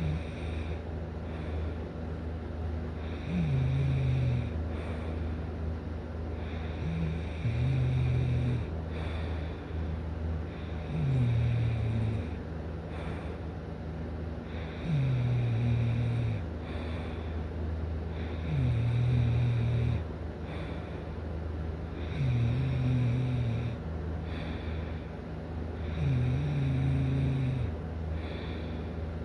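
A sleeping person snoring steadily, one low, rattly snore about every four seconds, each dipping in pitch as it starts, seven in all. A steady low hum runs underneath.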